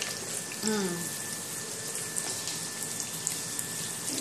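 Chopped onion and garlic sizzling in hot oil in a non-stick frying pan: a steady hiss with small crackles.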